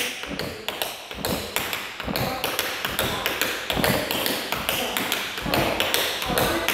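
Tap shoes' metal taps striking a wooden floor in a rapid, rhythmic tap dance sequence, many crisp taps each second.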